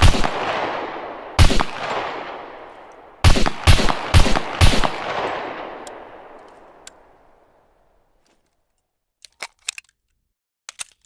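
M1911 pistol firing about six shots, singly and then in a quick string of four, each with a long echoing tail. A few faint clicks near the end.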